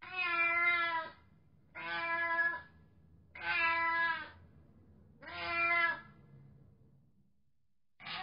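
Domestic cat meowing: four drawn-out meows, each about a second long, spaced roughly every one and a half to two seconds, with a fifth starting at the very end.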